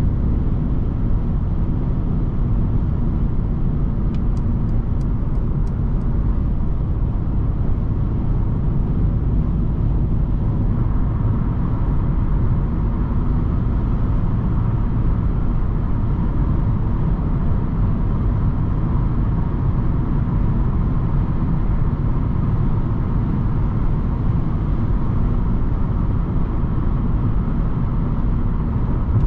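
Steady road and drivetrain noise of a 2022 Mercedes-Benz C 220 d estate with its 2.0-litre four-cylinder diesel cruising at an even speed, mostly a low rumble that neither rises nor falls. A few faint clicks come about four to six seconds in.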